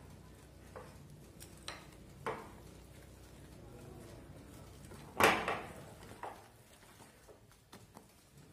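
Wire whisk working thick cake batter in a glass bowl, knocking against the bowl now and then: a few sharp clinks, the loudest about five seconds in.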